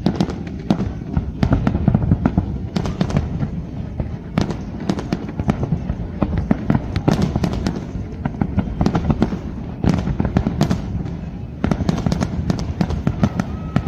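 Fireworks display going off in a rapid, irregular barrage of sharp bangs and crackles, several a second, over a continuous low rumble.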